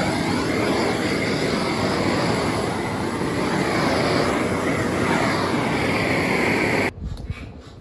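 Gas blow lamp burning with a steady, loud rushing hiss of flame at close range. It cuts off suddenly about seven seconds in, leaving a much quieter background.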